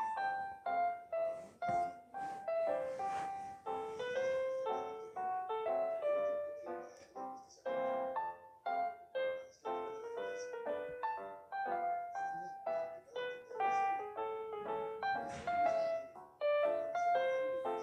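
Background piano music: a quick melody of separate struck notes, each fading after it sounds.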